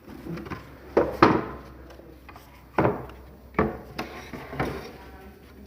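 Six or so sharp knocks and clanks at irregular intervals, from hand-tool work on sawmill carriage drive machinery.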